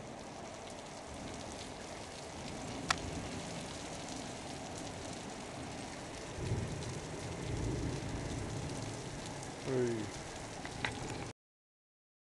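Steady rain falling during a thunderstorm, an even hiss over the rooftops. There is a sharp tick about three seconds in and low rumbles in the second half, and the sound cuts out for about a second near the end.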